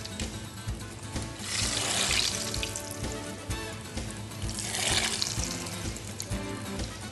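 Breaded codfish croquettes sizzling and bubbling in hot oil in a deep-frying basket. The sizzle swells twice, about three seconds apart, as more croquettes are dropped in.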